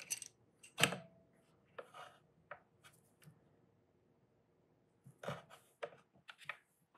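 Scattered clicks, knocks and scrapes of metal parts and tools being handled on a workbench. One sharper knock about a second in rings briefly, and a cluster of small clicks and rubs comes near the end.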